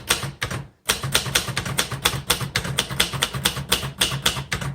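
Keys of a 1968-69 Sears Cutlass manual typewriter, built by Royal, clacking against the platen in a steady run of about five strokes a second, with a short break under a second in.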